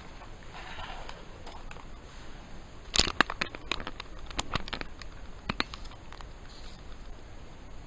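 Hands handling a cardboard toy box and its paper inserts: a brief soft rustle, then a quick run of sharp clicks and taps over two to three seconds, the first the loudest.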